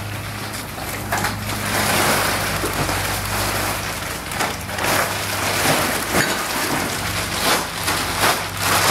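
Black plastic trash bag rustling and crinkling as it is handled, with a steady low hum underneath.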